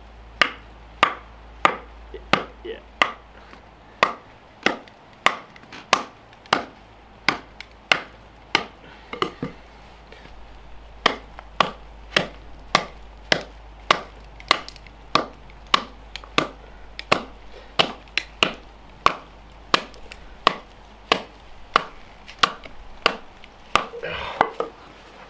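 Hatchet chopping at an ice-coated, frozen log: sharp strikes about one and a half a second, with a short pause about ten seconds in. The blade bounces off the frozen wood instead of splitting it.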